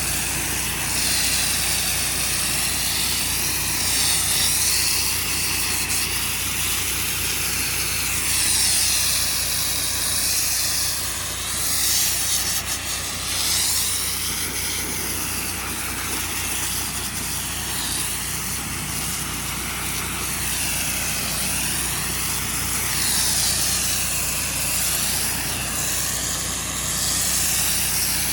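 Pressure washer running with a steady low hum under a continuous high-pressure spray from an X-Jet nozzle. The hiss of the water swells and fades over and over as the wand sweeps up and down a light post.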